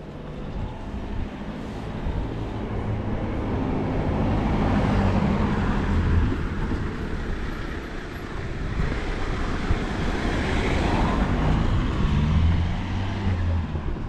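Road traffic: motor vehicles passing close by, one swelling and fading about a third of the way in and another near the end, over a steady background hum.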